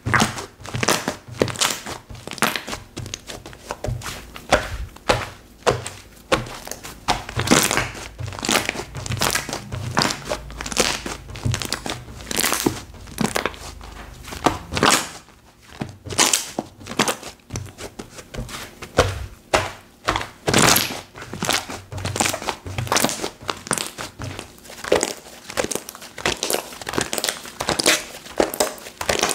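Slime being squeezed and stretched by hand: a continuous run of crinkling pops and clicks, a few each second.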